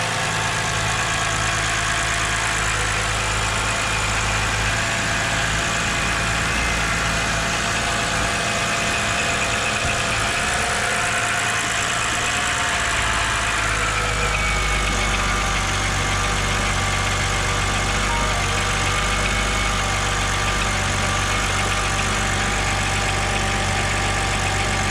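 BMW N52 inline-six engine idling steadily just after starting, with a high whine over it that drops a little in pitch about halfway through. The belt tensioner has failed and the new serpentine belt is working its way off the pulleys.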